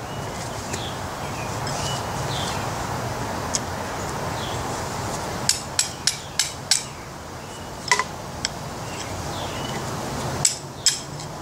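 Hammer striking a steel rod used as a drift, driving the remains of the old wooden handle out of a sledgehammer head. A quick run of about five sharp metallic strikes comes around the middle, then two more, one of them ringing briefly, and two more near the end.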